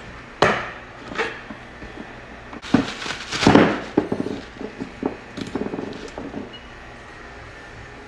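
Tools and parts being handled in a work van: two sharp knocks in the first second or so, then a loud rustle and clatter about three seconds in as a new brass refrigeration valve is taken from its plastic packaging, trailing off into lighter clicks and taps.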